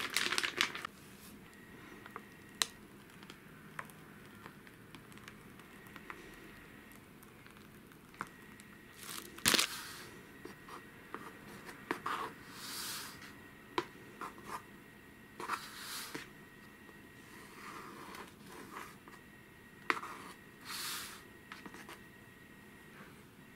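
Plastic piping bag crinkling briefly at the start. Then a metal offset palette knife scrapes and swishes as it spreads a soft chocolate mixture flat in a square metal cake pan, with scattered light clicks of the blade against the pan. One sharp click about nine seconds in is the loudest.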